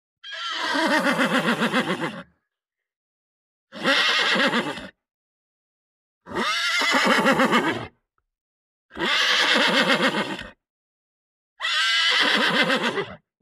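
A horse whinnying five times, each neigh about one and a half seconds of quavering, shaking pitch, with silence between the calls.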